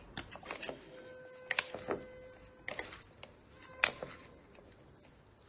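A salad being tossed in a bowl with a pair of light-blue plastic servers: scattered clicks and knocks of the servers against the bowl, with the rustle of leaves and vegetables being turned.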